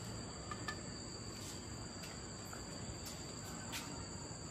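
Faint, steady insect trilling in two even high-pitched tones, with a few faint ticks.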